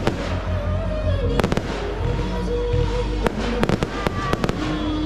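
Aerial fireworks bursting overhead, a string of sharp bangs and crackles that come thickest in the second half, over steady background music.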